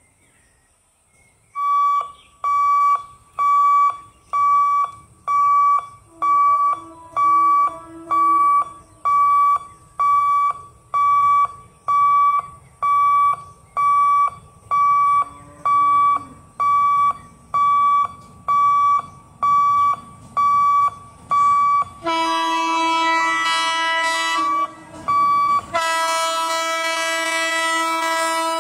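Level-crossing warning alarm sounding in short, steady-pitched beeps about once a second, warning of an approaching train. About two-thirds of the way through, the electric locomotive's horn takes over in long loud blasts with a brief break.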